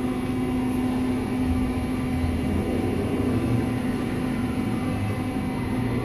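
Southwestern Industries LPM vertical machining center moving its table along the X and Y axes together under its axis drives: a steady mechanical hum with a low rumble that swells slightly about a second and a half in.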